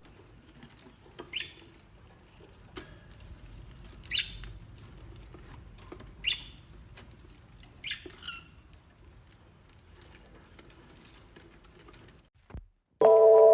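A small animal giving short, high squeaky chirps, each falling in pitch, about five of them spaced a couple of seconds apart over a faint background.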